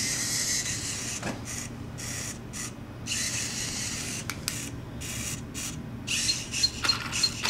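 Small electric motors and gears whirring in on-and-off spurts: the Boe-Bot robot's servo drive and the stripped toy RC car's motor running. Near the end, a row of short high beeps about three a second, the Boe-Bot's signal that its photoresistor sees bright light.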